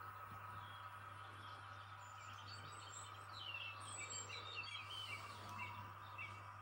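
Small birds chirping and twittering faintly in quick, short calls, busiest in the middle, over a steady low hum.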